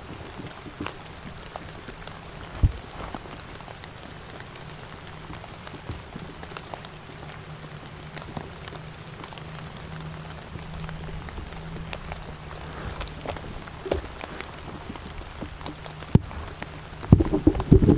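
Steady rain falling in the woods, with individual drops ticking close by and a faint low hum underneath. A few louder knocks come near the end.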